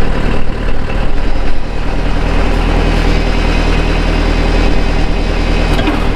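Mercedes-Benz Unimog 411's four-cylinder diesel engine running steadily, driving a rear-mounted Pfanzelt forestry winch through the PTO while the winch is worked, with a few surges in loudness in the first couple of seconds.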